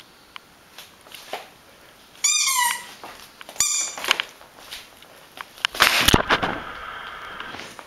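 A rubber squeaky ball squeaking under a Great Swiss Mountain Dog's bites: two short squeaks that drop in pitch at the end, about two and three and a half seconds in, then a loud clatter and a longer drawn-out squeak near the end.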